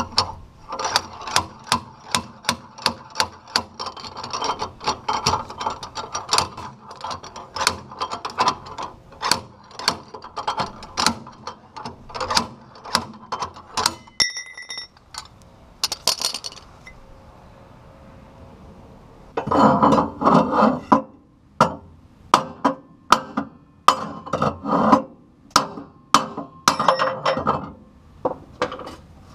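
A metal tool being struck and worked repeatedly inside the steel rear axle tube of a Bobcat 743 skid-steer, at about two sharp, ringing metal-on-metal strikes a second. The strikes break off about halfway through for a brief ringing note and a few seconds' pause, then start again harder.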